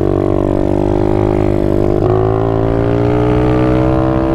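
Apollo RFZ 125 pit bike's single-cylinder four-stroke engine running under load while riding, its pitch climbing steadily as it accelerates, with a brief dip about two seconds in.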